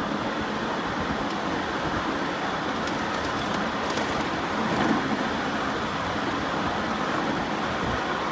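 Steady running noise of a ride-on miniature railway train rolling along its track, its wheels on the rails, with a few faint clicks about three to five seconds in.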